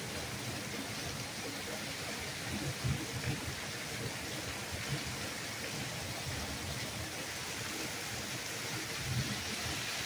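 Torrential rain pouring down steadily, with a soft low rumble now and then.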